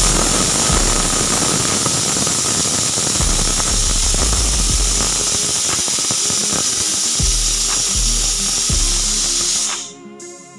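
Pressure cooker whistle: steam jetting from the weighted whistle valve in a loud, steady hiss with a faint tone in it, cutting off about ten seconds in.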